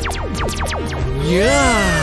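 Cartoon laser-blaster sound effects: a rapid string of falling 'pew' zaps over background music, followed by one long tone that swoops up and back down about a second and a half in.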